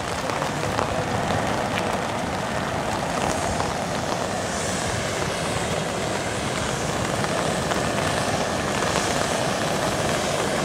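Hand-held tezutsu bamboo-tube fireworks jetting fountains of sparks: a steady rushing hiss that holds through the whole stretch and grows slightly louder near the end as two tubes spray at full force.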